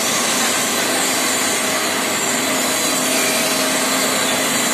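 Plastic granule (dana) recycling plant machinery running: a steady, loud whirring with a faint hum, from the inclined belt conveyor and extruder line in operation.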